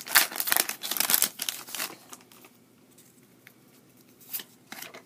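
Foil Pokémon booster pack wrapper being torn open, crinkling for about two seconds, then a few soft clicks as the cards are handled.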